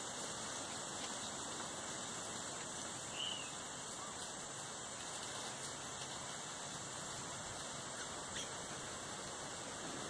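Steady even outdoor background hiss, with one brief chirp about three seconds in.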